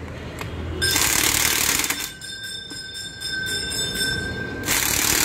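Impact wrench hammering as it runs down the cylinder head bolts of a Pulsar 220 engine, starting about a second in, with a spell of high steady whine in the middle before it hammers again near the end.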